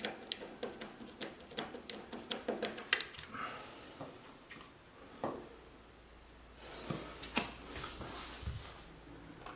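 Small sharp clicks and taps of parts and screws being handled and fitted into a guitar amplifier chassis, several a second, then two breathy exhalations.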